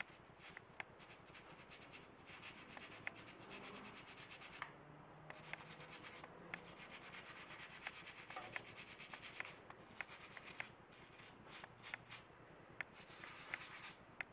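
Fast rhythmic scrubbing on a small service fuse connection block part as gunk is cleaned off it, in spells broken by short pauses.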